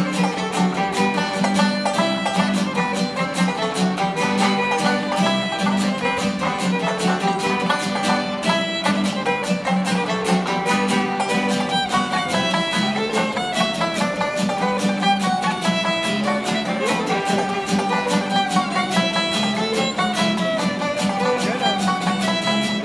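Fiddle, banjo and acoustic guitar playing a Ukrainian kozak dance tune live. The fiddle carries the melody over a quick, even picked rhythm from the banjo and guitar.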